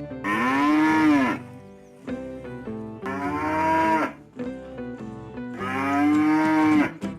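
Cattle mooing: three long, drawn-out moos about two and a half seconds apart, each bending in pitch. Background music plays softly underneath.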